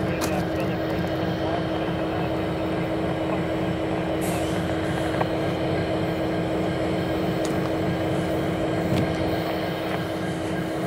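Distant approaching freight train's diesel locomotives, a BC Rail GE C40-8M and a CN GE C44-9WL, running as a steady drone with a pulsing low rumble.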